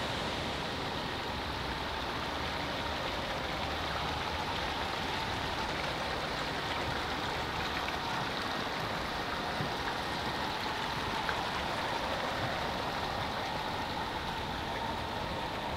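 Steady rush of water running in a Japanese garden stream or pond, with a faint steady high tone above it.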